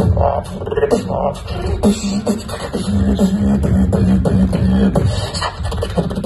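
Live solo beatboxing amplified through a venue sound system: fast percussive clicks and snare-like hits, with a held low bass tone through the middle.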